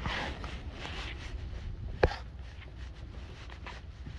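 Low wind rumble and rustling handling noise on a moving phone microphone, with one sharp knock about two seconds in.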